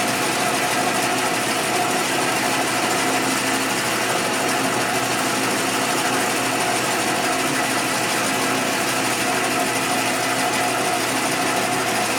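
Metal lathe running steadily with the chuck turning, taking a light cut across the face of the work. The running gives an even hum with a few steady tones in it.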